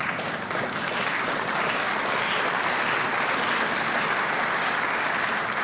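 Audience applauding: dense, even clapping from a large seated crowd, beginning to thin out near the end.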